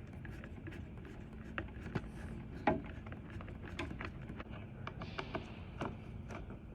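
Scattered light clicks and knocks of hands and tools handling parts during exit sign installation, over a steady low hum; the loudest knock comes a little under three seconds in.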